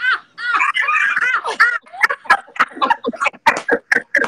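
Hearty laughter on a video call: a man's loud laugh going up and down in pitch, then quicker, choppier bursts of laughter.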